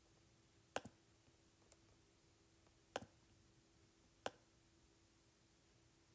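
A handful of sharp taps on the iPad's touchscreen: a quick double tap about a second in, a faint tap soon after, another double tap about three seconds in and one more a little past four seconds, over a faint steady hum.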